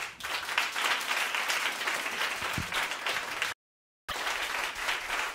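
Audience applauding, a dense stream of many hands clapping. About three and a half seconds in the sound cuts out completely for half a second at an edit, then the applause resumes.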